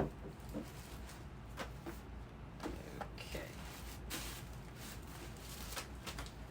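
Scattered light knocks and rustles of objects being handled, the sharpest one at the very start, over a low steady room hum.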